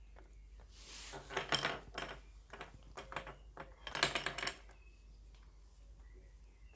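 Maltese dog gnawing a deer bone: its teeth click and scrape on the hard bone in quick clusters. The loudest bouts come about a second in and again around four seconds in.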